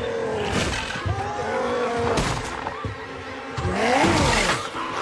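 Film sound mix of overlapping cries that glide up and down in pitch, swelling into a loud rushing surge about four seconds in.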